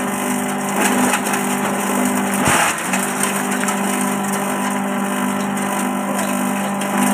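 A multipurpose chopper driven by a 2 hp electric motor running with a steady hum, under a rough, splintering noise of material being chopped. The hum dips briefly about two and a half seconds in.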